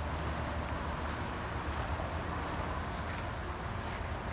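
Insects trilling steadily in one high, unbroken tone, with a low, even rumble underneath.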